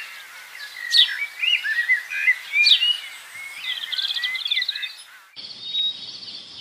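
Birds singing a mix of short whistled chirps and a fast trill. This cuts off suddenly about five seconds in and gives way to a steady, high, pulsing chorus of calling animals.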